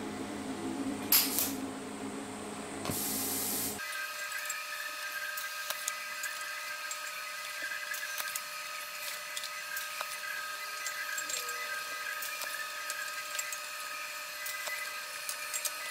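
TIG welding arc on thin stainless-steel sheet: a steady high buzzing whine with fine crackling starts about four seconds in and holds. Before it there is a sharp crack about a second in and a short hiss.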